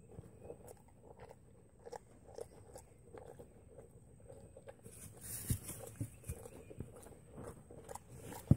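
Miniature foal chewing crushed pelleted horse feed from a plastic tub: soft, repeated crunching about twice a second, with a short rustle about five seconds in. A single sharp knock near the end is the loudest sound.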